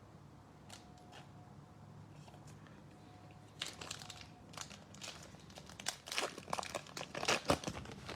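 A foil trading card pack being torn open and its wrapper crinkled, starting about three and a half seconds in, after a few faint clicks of handling.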